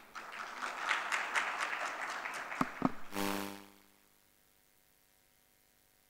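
Audience applauding for about three and a half seconds, with a couple of sharp knocks near the end, then dying away to a faint steady hum.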